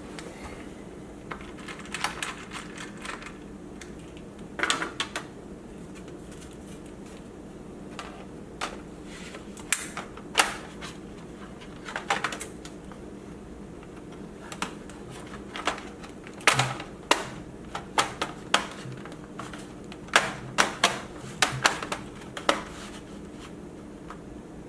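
Irregular clicks and taps, some in quick clusters, from hands working on a laptop. A steady low hum runs underneath.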